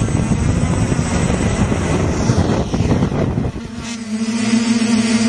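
A multirotor drone's motors and propellers lifting off, heard from a camera mounted on the drone. A rough, rushing propeller noise gives way, about three and a half seconds in, to a steadier pitched hum.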